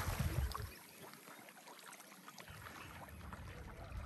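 Water splashing as a Labrador plunges into a lake and swims off: loud for the first second, then dying down to faint splashes and lapping.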